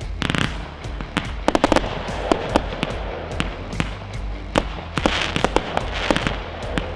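Weco 'Time Machine' 149-shot fireworks battery firing: a rapid string of sharp bangs with crackling, thickest around two seconds in and again from about five seconds in.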